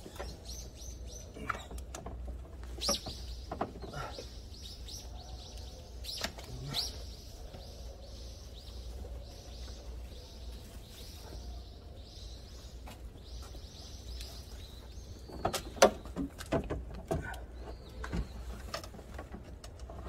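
Socket ratchet clicking in a long run of quick, even strokes while fastening a new car battery in place, with a few sharp knocks of the battery and tools before and after.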